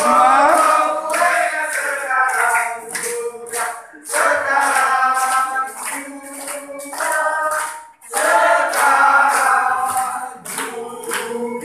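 A group of people singing a cake-cutting song together, clapping in time. The singing comes in phrases, with short breaks about four and eight seconds in.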